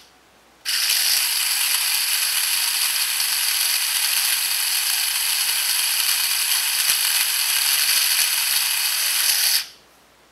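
Power drill running at a steady speed with a high-pitched whine, spinning a phaco tip in gauze during polishing. It starts abruptly just under a second in and winds down near the end.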